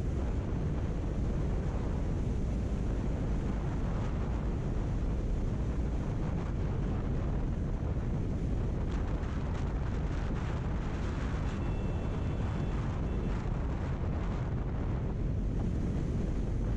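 Wind buffeting the microphone of a rider-mounted camera on a motorcycle at highway speed, a steady rumble with the bike's engine and road noise underneath.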